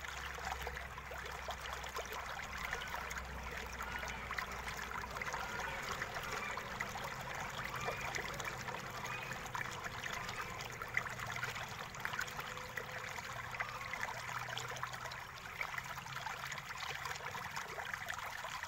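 Faint steady hiss with many small, rapid clicks and scrapes from a precision star-bit (Torx) screwdriver turning out the metal screws of a laptop's bottom cover, sped up.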